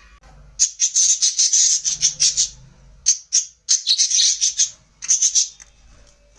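Budgerigar giving harsh, scratchy chattering calls in several quick rasping runs with short gaps between them.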